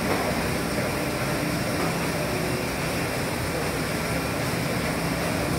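Challenge CMT-130 automatic three-knife trimmer running: steady mechanical noise with a low hum, even throughout, with no separate cutting strokes standing out.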